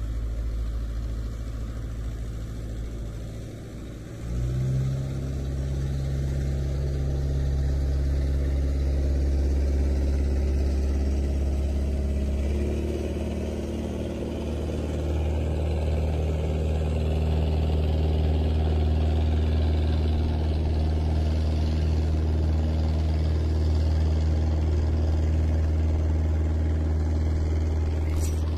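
Boat engine running steadily at low speed. Its note steps up and gets louder about four seconds in, and shifts again around twelve seconds in.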